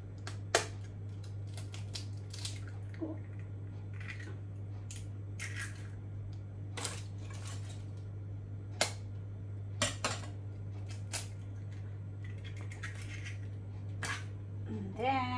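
Eggs tapped and cracked on the rim of a bowl, with shells breaking and being pulled apart: a series of scattered sharp cracks and clicks, the loudest about half a second in and again around nine and ten seconds in. A steady low hum runs underneath.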